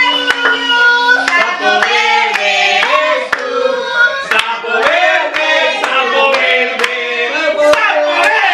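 A small group of adults and children singing together while clapping their hands, with many sharp, uneven claps over the sung notes.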